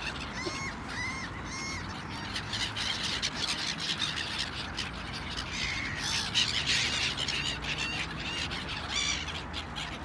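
A flock of gulls calling with short, harsh squawks: three in the first two seconds, a busy burst of overlapping calls in the middle, and one more near the end.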